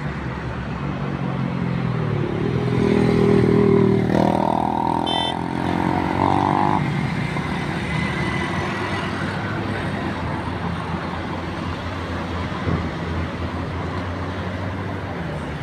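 Road traffic passing on a highway. A few seconds in, one vehicle's engine rises in pitch as it accelerates past and is loudest there, then a steady traffic hum carries on.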